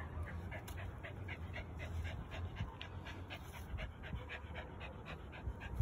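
A dog panting rapidly, about four to five breaths a second, over a low steady rumble.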